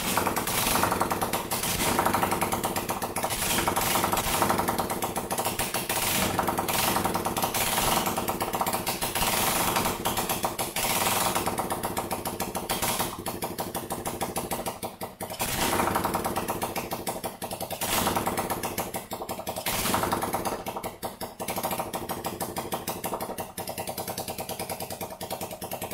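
Lifan 125 single-cylinder four-stroke engine in a Honda CT70 running with a rapid, even chugging beat. The throttle is blipped so the engine rises and falls in speed several times.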